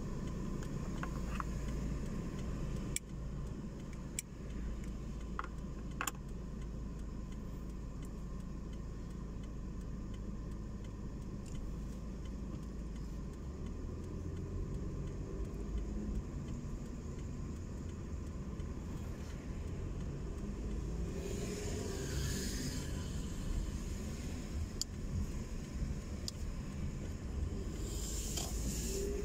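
Low, steady rumble of a car's engine and road noise heard from inside the cabin, with a brief hissing swell about three quarters of the way through and again near the end.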